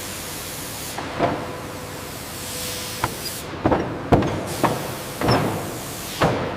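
Sawmill machinery running steadily, with about eight irregular sharp knocks and clunks over several seconds, as of lumber and machine parts banging.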